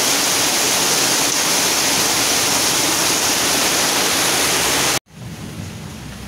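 Heavy tropical downpour: a loud, steady hiss of rain. It cuts off suddenly about five seconds in, giving way to a much quieter background.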